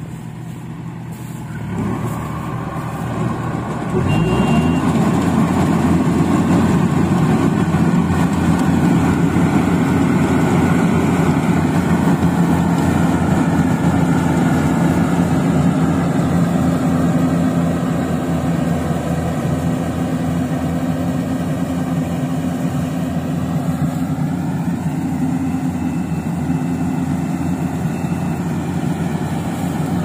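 Yanmar AW70V rice combine harvester's diesel engine running. It rises in two steps, about two and four seconds in, to a steady working speed, and eases off slightly past the middle.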